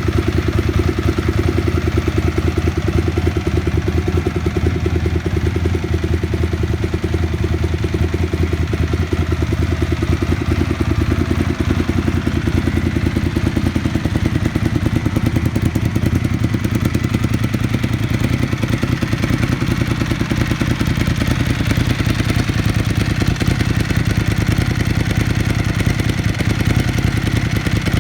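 Ducati 999S's 998 cc Testastretta L-twin engine running steadily at a constant low speed, with no revving.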